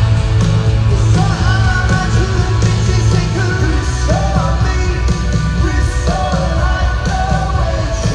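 Live rock band playing loudly, with strong bass throughout and a sung vocal line coming in about a second in.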